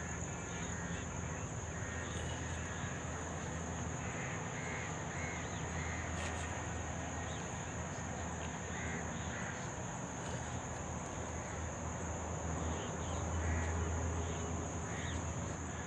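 Crows cawing in short runs of a few caws each, over a steady high-pitched insect drone.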